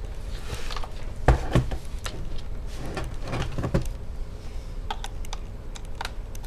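Handling noise from a plastic laptop case being picked up and tipped on its side: two sharp knocks about a second in, then rustling. Near the end a screwdriver tip clicks against the underside as it is pushed into a hole to pop the keyboard out.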